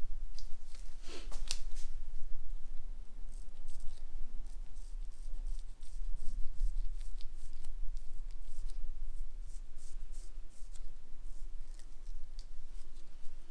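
Straight razor scraping over the skin of a shaven head and neck in many short, repeated strokes, with one louder brief sound about a second and a half in.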